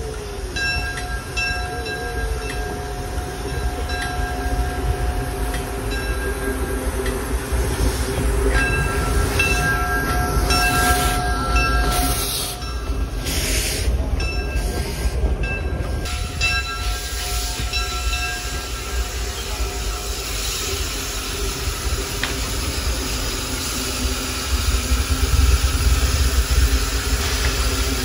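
A 1907 Baldwin steam locomotive and its cars passing close by at track level, with a steady low rumble of wheels and running gear and a hiss of steam. A bell rings repeatedly in stretches over it.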